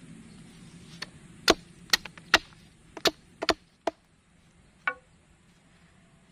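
A tool striking wood: a run of about ten sharp knocks at an uneven pace, bunched over a few seconds, with a last single knock about five seconds in.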